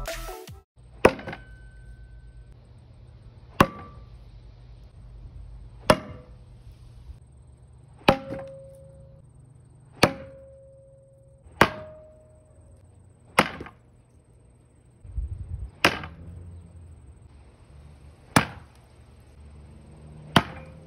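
Mini throwing axes with bare metal handles striking a homemade target of scrap 4x4 and 2x4 lumber: ten sharp thunks about two seconds apart. Several hits are followed by a short ringing tone as the blade vibrates in the wood.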